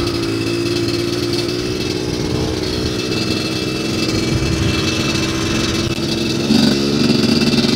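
GPXMoto TSE250R dirt bike engine running steadily while riding, over wind and tyre noise on gravel. About six and a half seconds in, the engine note drops in pitch and gets a little louder.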